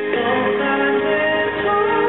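Dance accompaniment music with a singing voice.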